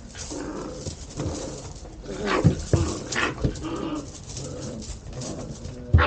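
Dutch Shepherd puppies growling in play as they squabble over a box, with a few short sharp yips in the middle.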